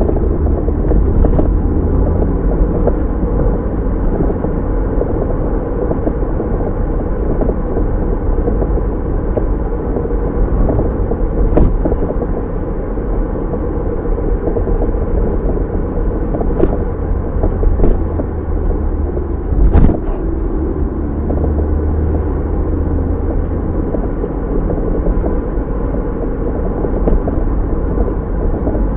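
Car driving, heard from inside the cabin: a steady low rumble of tyres and engine, broken by a few sharp knocks, the loudest about two-thirds of the way through.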